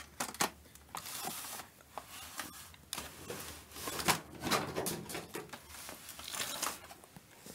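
Handling noise: scattered rustles, light clicks and knocks as the camera and the opened TV's metal chassis are handled, with one sharper knock about four seconds in.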